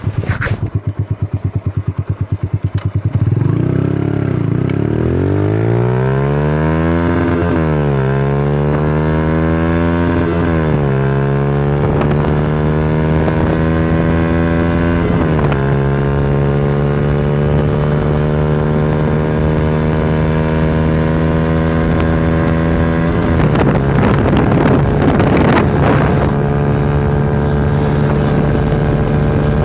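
Yamaha YBR 125's single-cylinder four-stroke engine, fitted with an Akrapovic exhaust, pulls away from idle under hard acceleration. Its pitch rises through each gear with four upshifts, then holds a steady note in top gear at about 100 km/h. Wind buffets the microphone briefly a few seconds before the end.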